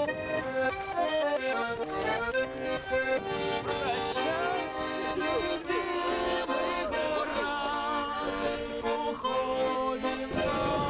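A Russian garmon, a small button accordion, playing a folk tune: a melody over held chords, going on without a break.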